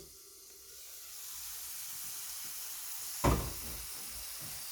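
Onion and garlic frying in oil in a pan, a sizzle that builds over the first second or two and then holds steady. A single knock sounds about three seconds in.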